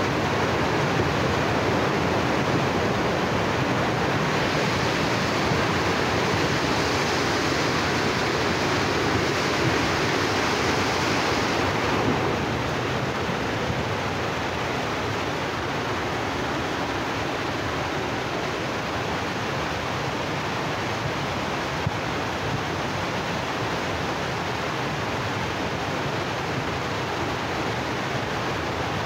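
Flash-flooded river rushing: a loud, steady wash of fast, muddy floodwater as the Kali Erang overflows after heavy rain. It turns slightly quieter and less hissy about twelve seconds in.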